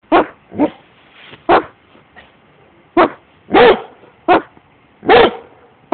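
Giant Schnauzer barking: seven barks at uneven intervals, a few of them drawn out longer than the rest.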